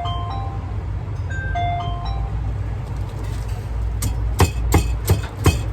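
A short electronic jingle of plinked notes plays over a steady low hum, then from about four seconds in come sharp, regular knocks, about three a second.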